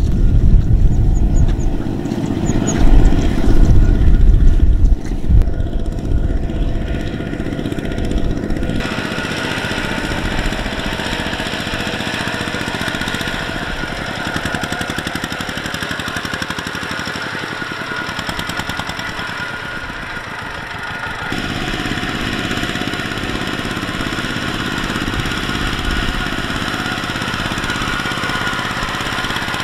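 Single-cylinder diesel engines of two-wheel walking tractors chugging steadily under load as they haul trailers of rice sacks through deep mud. Heavy wind rumble on the microphone in the first few seconds, and the engine sound changes abruptly twice, about a third and about two-thirds of the way in.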